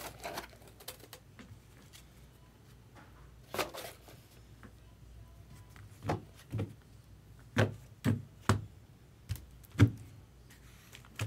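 A series of light thuds and taps from objects being set down and handled on a tabletop: one about three and a half seconds in, then a cluster of about eight between six and ten seconds in, over a faint low hum.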